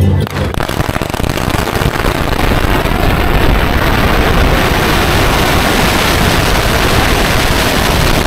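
A long string of firecrackers on the pavement going off in a rapid, unbroken chain of bangs, starting about a third of a second in.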